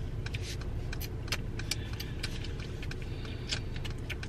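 Steady low hum of a car idling, heard from inside the cabin, with scattered light clicks and taps.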